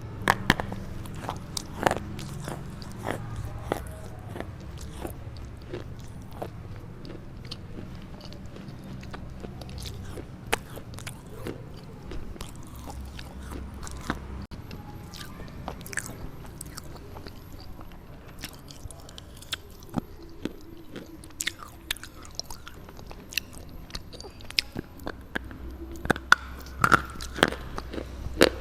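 A red slate bar being bitten and chewed: irregular sharp crunches and clicks, some close together in quick runs.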